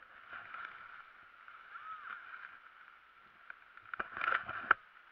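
Skis sliding and scraping over packed snow in a steady hiss, with a cluster of sharper scrapes and clatters about four seconds in.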